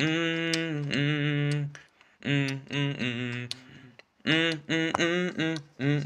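Male voice singing short phrases with brief pauses between them, with a few faint ticks.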